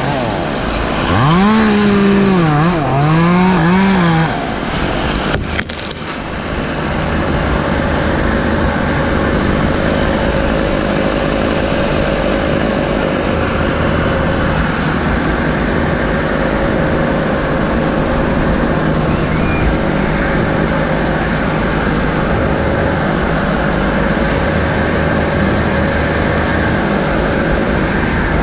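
A chainsaw revs up and down, its pitch rising and falling, for about four seconds and then stops. After that a heavy engine runs steadily, with a constant hum under a broad noise.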